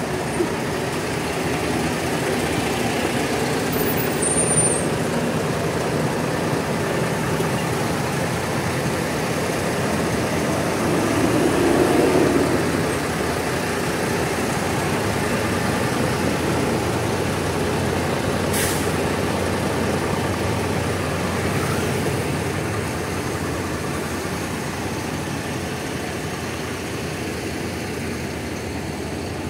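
Large bus diesel engine running steadily, growing louder for a moment a little before halfway through. A short sharp hiss cuts in about two-thirds of the way through.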